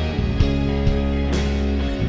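Live worship band playing an instrumental passage: held chords over a steady bass, with two cymbal crashes.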